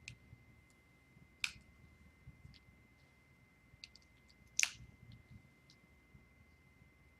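A few scattered sharp clicks and small ticks over quiet room tone, the two loudest about a second and a half and four and a half seconds in, with a faint steady high whine underneath.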